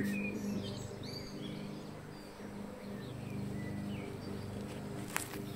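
Swarm of honeybees buzzing in a steady low hum, with birds chirping now and then. There is a single sharp click near the end.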